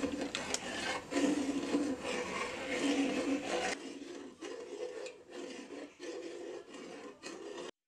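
A metal ladle stirring and scraping around a steel pot of milk as it thickens and curdles for paneer. It is louder for the first few seconds, softer after about halfway, and cuts off just before the end.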